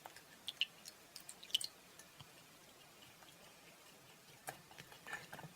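Faint, sticky squishing and small clicks of clear-glue and borax slime being stirred in a bowl as it starts to bind together.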